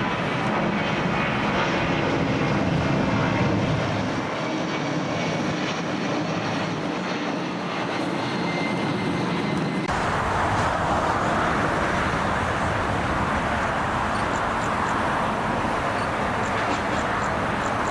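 Jet airliner engine noise, a loud steady rush that shifts abruptly in tone about ten seconds in, losing its deep rumble and turning higher and hissier.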